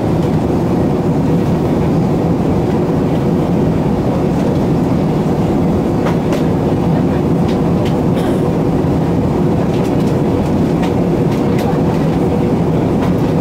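Steady rumble of engine and airflow noise inside the cabin of an Airbus A380 in flight, with its Rolls-Royce Trent 900 turbofans running and a faint steady hum. A few faint clicks come through over the rumble.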